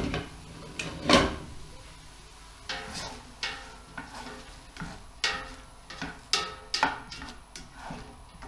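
Spoon stirring diced Jagdwurst in a large steel pot, with two louder knocks in the first second or so and then a run of scrapes and clinks against the pot. Under it a faint sizzle of the sausage frying while it sweats out a lot of moisture and steams.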